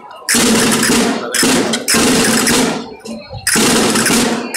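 Loud, heavily distorted live folk dance music with a drum and the dancers' castanets clattering. It comes in bursts about a second long with short breaks between.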